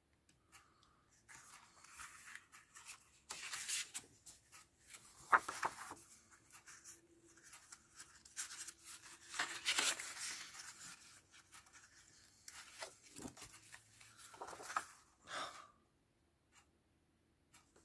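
Sheets of scrapbook paper rustling and swishing as they are turned over and slid by hand, as a run of separate, uneven rustles.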